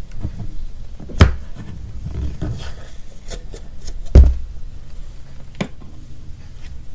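Hands squeezing and pressing cloud slime, giving irregular crackles and clicks, with two loud sharp pops about a second in and again about four seconds in.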